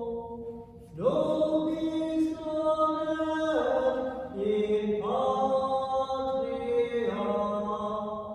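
Slow chant-like devotional singing: long held notes stepping from pitch to pitch in phrases of one to three seconds, with short breaths between phrases.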